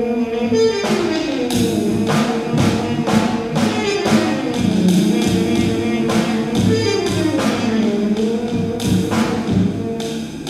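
Free-improvised jazz on trumpet and drum kit. A held trumpet note bends downward in pitch about a second in, over busy drum and cymbal strikes, then climbs back up to a held note near the end.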